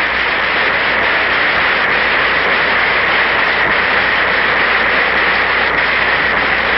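Audience applause in a large conference hall: dense, steady clapping from many people.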